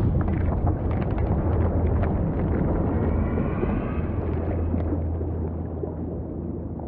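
Deep underwater rumble for a film scene sinking into a dark pool: a steady low roar with scattered bubbly clicks, a faint wavering tone about three seconds in, slowly easing off toward the end.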